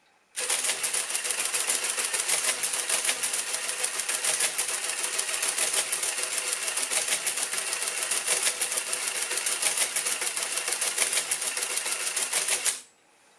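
Madas Model 20 electromechanical calculator running an automatic division with its covers off: the motor-driven mechanism clatters with a rapid, even stream of clicks for about twelve seconds, starting about half a second in and stopping abruptly near the end as the division completes.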